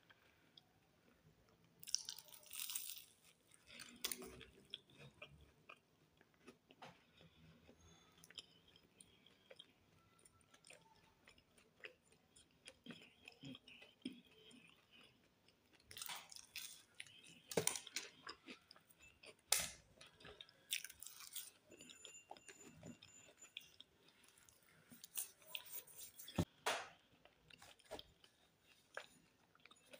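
A person chewing and biting into a pastry close to the microphone. Soft mouth sounds are broken by short crisp crunches, which come most thickly a little past halfway and again toward the end.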